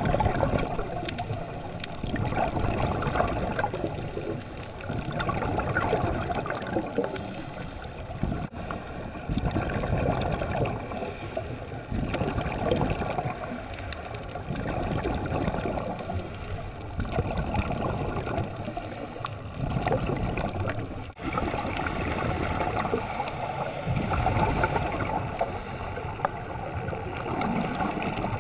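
Underwater bubbling and gurgling from scuba divers' exhaled air, swelling and fading every few seconds in time with the breathing, broken twice by a brief gap.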